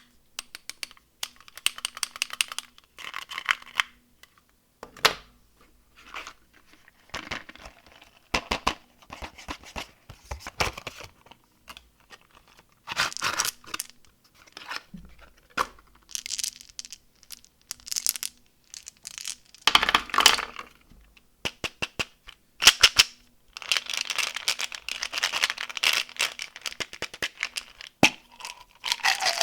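Plastic candy wrappers and packaging crinkling and tearing close to the microphone, in irregular bursts with sharp clicks and crackles between short pauses.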